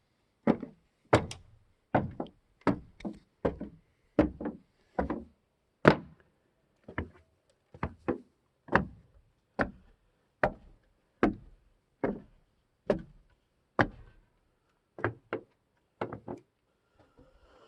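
A series of hollow knocks on wood, roughly one a second and some in quick pairs, each sharp and short.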